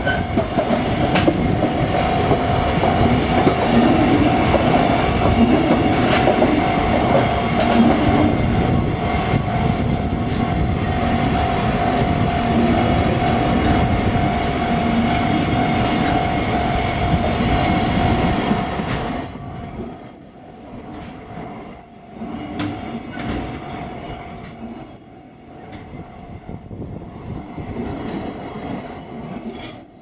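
Container wagons of a freight train rolling past on a curve, wheels clattering over the rails, with a steady high squeal from the wheels in the curve. About two-thirds of the way through the rumble drops markedly quieter and duller as the wagons keep passing.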